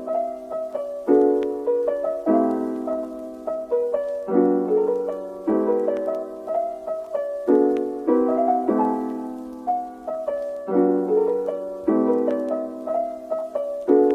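Background music: a piano playing chords, struck about once a second and left to ring out.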